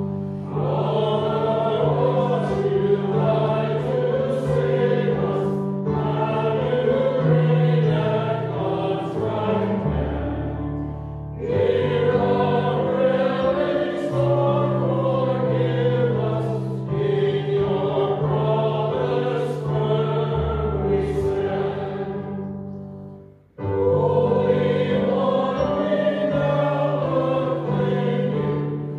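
Voices singing a hymn with keyboard accompaniment, with sustained bass notes under the melody. The singing goes in long phrases, with a short break about a third of the way in and another near the end.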